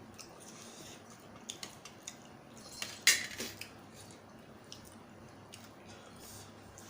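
Cutlery clinking against a plate or bowl while eating: scattered light clicks, with one sharper, louder clink about three seconds in.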